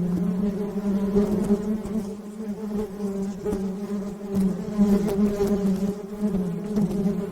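A swarm of bees buzzing: a dense, steady drone that wavers slightly in pitch and loudness.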